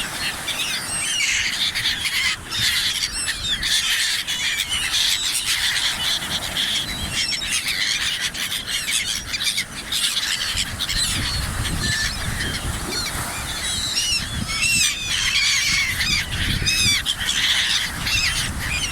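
A large flock of birds calling and squawking over one another in a dense, continuous chorus, with a low rumble underneath.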